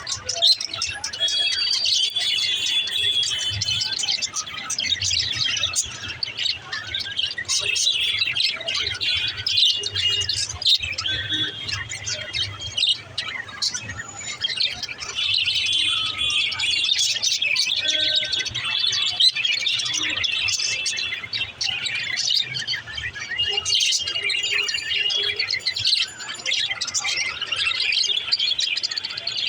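Budgerigars chirping and chattering, with many quick, high, overlapping chirps and trills that never let up. A faint steady low hum lies underneath.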